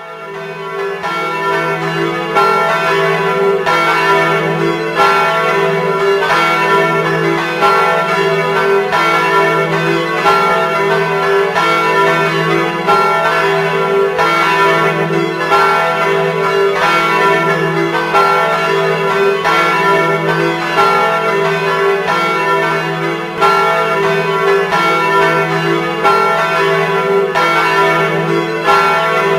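Church bells ringing, struck about every second and a quarter, each strike's tones overlapping and hanging on into the next.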